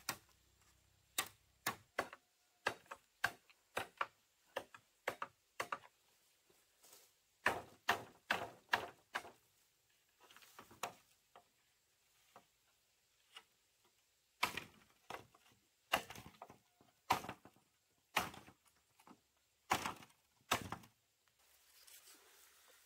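Machete blade striking split bamboo. A run of sharp knocks about two a second, then uneven clusters of blows with pauses. At first the blows are chopping out the node walls inside halved bamboo poles to make open water troughs.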